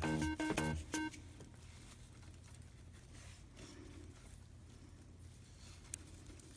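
Short phrase of background music notes that stops about a second in, then faint steady low-pitched room noise.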